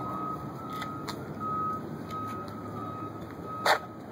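Vehicle reversing alarm beeping steadily, one high beep about every 0.7 seconds, over a low background rumble. A single sharp knock about three and a half seconds in.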